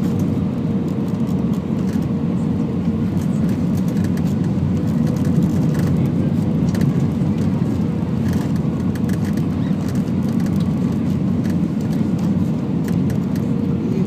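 Cabin noise inside an Airbus A320 on final approach, flaps and slats extended: a loud, steady rush of airflow and engine noise, with a faint hum that comes and goes.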